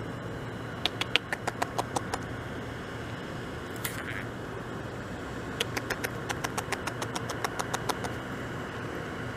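Beaver gnawing bark off a log: rapid, sharp crunching clicks of its teeth in two runs, one about a second in and a longer one from about five and a half seconds, over a steady background hiss.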